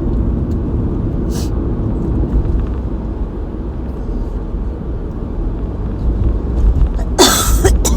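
Steady low rumble, then a harsh cough near the end from a person in an asthma attack.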